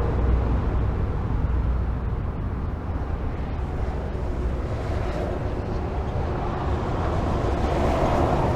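Highway traffic: a steady rumble and tyre noise from passing cars. It eases a little a few seconds in, then swells again near the end as another vehicle comes closer.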